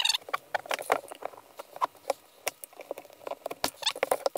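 Irregular clicks, taps and scrapes of gloved hands handling an aluminium dirt-bike silencer on a workbench, as rubber mounting grommets are worked out of its bracket and set down.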